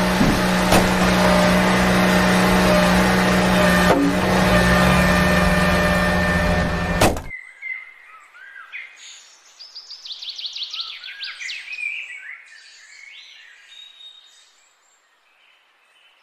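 A steady mechanical hum over heavy noise, cut off abruptly about seven seconds in. After it, birds chirp and trill more quietly, fading out near the end.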